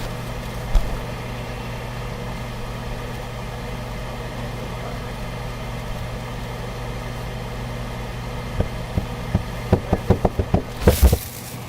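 Steady low hum of a refrigerator-freezer running, heard from inside the closed freezer compartment. In the last three seconds a string of short knocks and bumps builds to a louder clatter.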